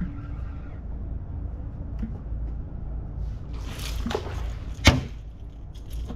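A fish strikes at the surface with a splash about four seconds in. About a second later comes a single sharp knock, the loudest sound.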